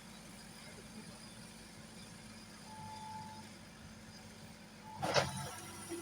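Combine harvester running steadily with a low machine hum while it unloads rice. About five seconds in there is a sudden loud burst that sweeps in pitch.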